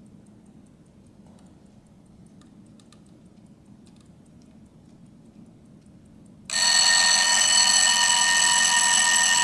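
Antique 24-hour alarm clock going off at its set time: after a few seconds of faint clicks, its alarm starts ringing suddenly about six and a half seconds in, loud and continuous.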